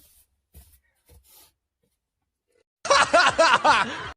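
A person laughing in a quick burst of rising and falling voice, starting about three seconds in and lasting just over a second, after a few faint short sounds.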